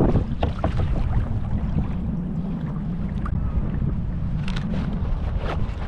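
Wind rumbling on the microphone over the sound of water around a sea kayak, with a few short clicks near the start and again after the middle.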